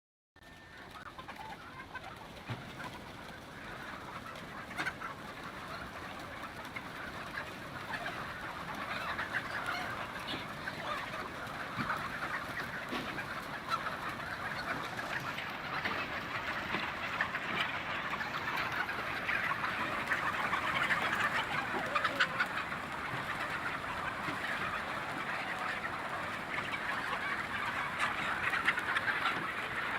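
A large flock of country chickens clucking all at once, a dense, unbroken chatter of many overlapping calls that grows slowly louder.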